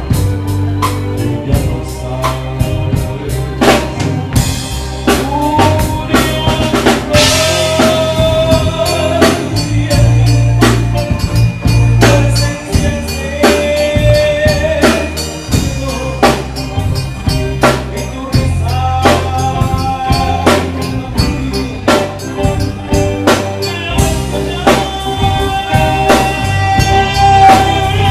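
A live band playing: a steady drum-kit beat with bass drum, snare and rimshots under an electric bass line and held melody notes.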